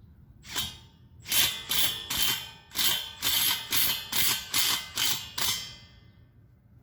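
A power tool run in short bursts at the concrete-block anchor holes: one brief burst, then a quick run of about a dozen bursts roughly three a second that stops near the end.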